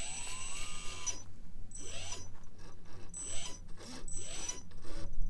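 Electric drive motor and gearbox of a radio-controlled scale Unimog trial truck whining in short bursts of throttle as it crawls, about five bursts, each rising in pitch, with a high thin whine over each one.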